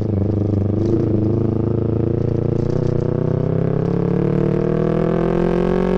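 Yamaha MT-25's 250 cc parallel-twin engine running under way, its pitch rising gradually over a few seconds as the bike gently accelerates, then levelling off near the end.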